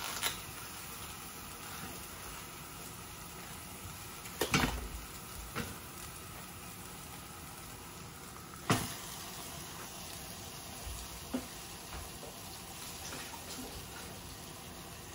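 Ground pork frying in oil in a stainless steel saucepan over a gas flame, a steady soft sizzle. A few sharp knocks and clatters break through as more raw meat is tipped from a foam tray into the pan, the loudest about eight and a half seconds in.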